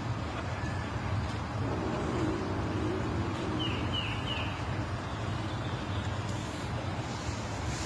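Steady low rumble like road traffic or a running motor, with three quick, short high chirps a little past the middle.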